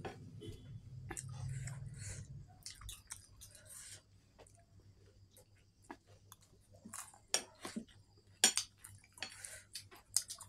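Close-up chewing of food in a mukbang, with scattered sharp clicks and crunches that come more often and louder in the second half.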